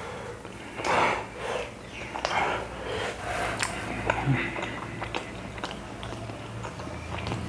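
Chewing and biting sounds of a man eating chapati fast, with many small mouth clicks and a few louder noisy bursts in the first few seconds.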